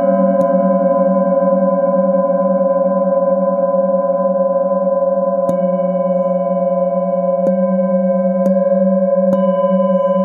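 A hand-held metal singing bowl struck with a mallet five times, its deep tone ringing on between strikes with a slow pulsing wobble and several higher overtones above it.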